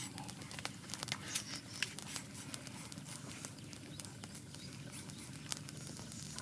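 Small campfire of dry twigs crackling, with sharp pops scattered irregularly over a steady low background noise.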